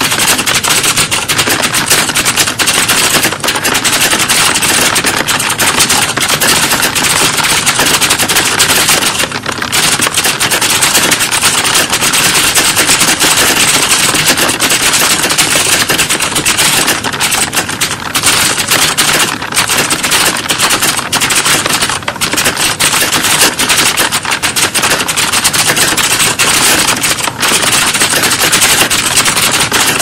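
Dense, rapid clatter of computer keyboard keys, many typists at once as in a typing exam centre, going on without a break apart from a couple of brief small dips.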